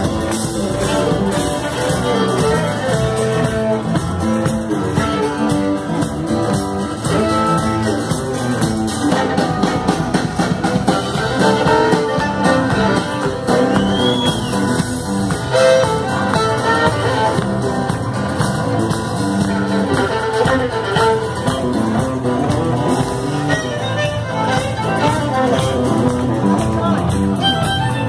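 Live Celtic band playing an instrumental tune: fiddle, acoustic guitar, electric bass and bodhrán with a drum kit, keeping a steady beat.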